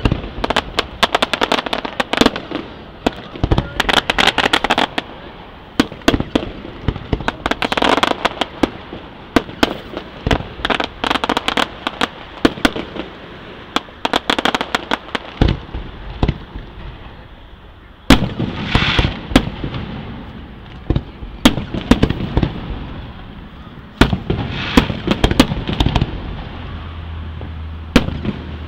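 Aerial fireworks display: shells bursting in a rapid, continuous string of sharp bangs, with bouts of crackling. Heavier booms come in the second half.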